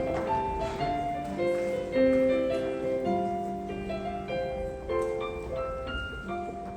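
Piano playing a slow instrumental passage of sustained notes and chords.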